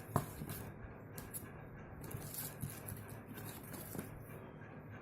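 Faint rustling and light clicks of cardboard and paper packaging being handled, scattered irregularly over a low steady room hum.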